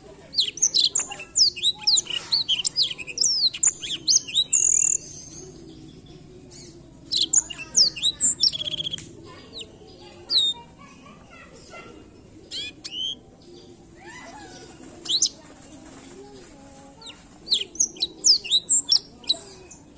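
Black-throated canary (blackthroat) singing in phrases of rapid, high, sweeping chirps and trills, with short pauses between them. There is a long phrase at the start, shorter ones in the middle and another long one near the end.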